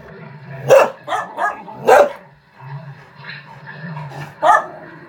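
Norwegian Elkhound barking: three loud, sharp barks, about a second in, about two seconds in and near the end, with two smaller barks between the first two.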